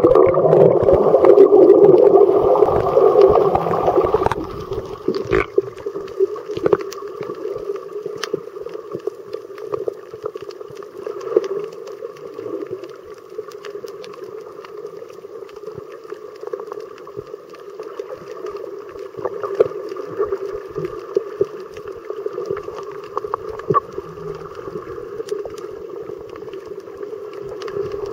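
Underwater sound picked up by a submerged camera: a dense rush of water for the first four seconds or so, then a steady muffled hum with scattered small clicks.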